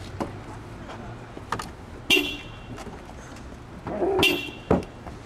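A car horn toots briefly twice, about two seconds and four seconds in, with sharp knocks of hands on the car's body and door.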